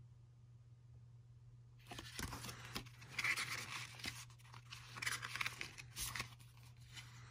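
Pages of a small paper diary booklet being flipped through by hand: a run of rustling with quick page flicks that starts about two seconds in.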